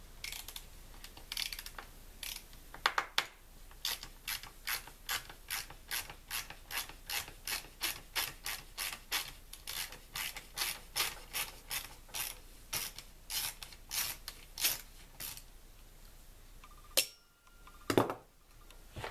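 Ratcheting screwdriver with a T25 Torx bit clicking steadily, about three clicks a second, as a screw is backed out of a chainsaw's handle cover. Two louder knocks near the end.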